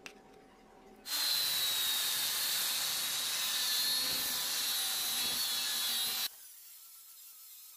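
Angle grinder with a thin abrasive cut-off disc cutting into a solid steel round bar, a loud steady grinding with a high whine. It starts about a second in and stops suddenly after about five seconds.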